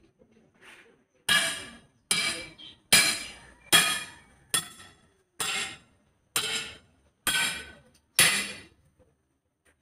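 A long steel tyre bar driven down nine times against a truck wheel's tyre and rim, each blow a sharp, ringing metal clank, a little under a second apart, as the tyre is worked off the rim by hand.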